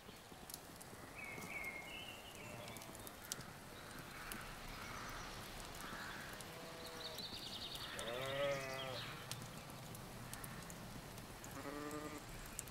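Sheep bleating a few times, the loudest a wavering bleat about eight seconds in, with faint birdsong chirping behind.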